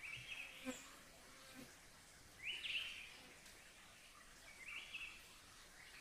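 Three short animal calls repeated about every two seconds, each a high note that steps upward, over a faint hiss, with one small click near the start.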